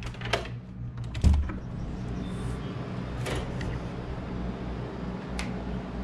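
Hotel balcony door being opened: the knob and latch click, then a heavy low thump about a second in as the door swings open. Steady outdoor background noise follows, with a few more light clicks.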